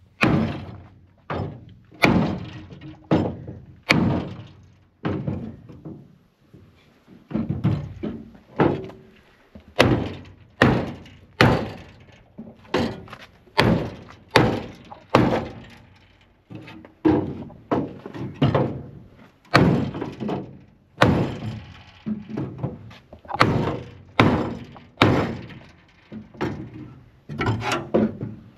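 Repeated dull thunks, roughly one a second and sometimes in pairs, from bodywork on the crumpled front end of an Opel Ascona being knocked back into shape.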